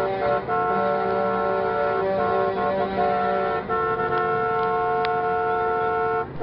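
Tractor-trailer air horns sounding in long held blasts, a chord of several steady tones that breaks off briefly about half a second in and again a little past the middle.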